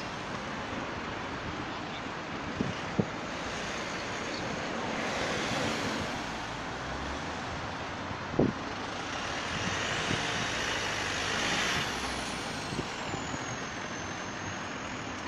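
Road traffic around a roundabout: a steady rush of passing cars and trucks, swelling twice as vehicles go by. A few sharp knocks stand out, the loudest about eight seconds in, and a high thin whine rises and falls in the second half.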